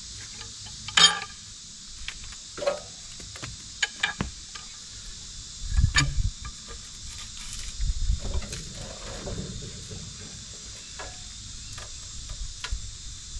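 A peavey working a big red oak log around on a sawmill bed: a sharp knock about a second in, then scattered clinks and knocks and a couple of heavy thumps midway as the log shifts. A steady high insect buzz runs behind.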